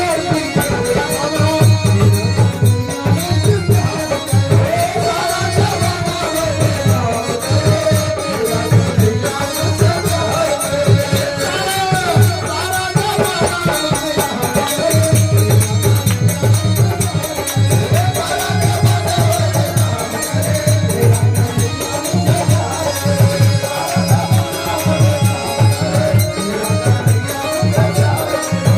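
Hindi devotional bhajan music with a steady beat: hand drums and a shaken rattle under a wavering melody.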